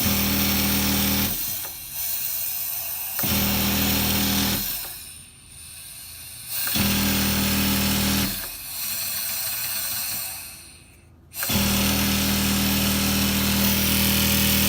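LJ-62000 industrial flatlock sewing machine running in a series of short stitching runs of about one and a half to three seconds each, stopping and starting again several times. Each run is a steady hum.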